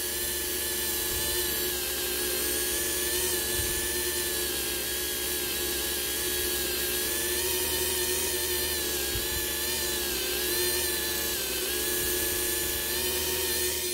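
Handheld rotary tool spinning a yellow foam polishing pad with fine polishing compound against the 2K clear coat of a plastic model car body. It runs as a steady high-pitched whine that wavers slightly in pitch.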